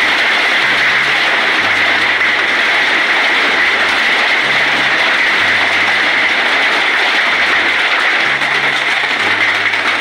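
Heavy rain mixed with hail pelting bare ground: a loud, steady, dense hiss. A slow low bass line of background music runs underneath.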